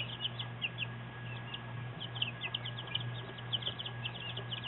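Young chicks peeping: a continual stream of short, high, downward-sliding cheeps, several a second, over a steady low hum.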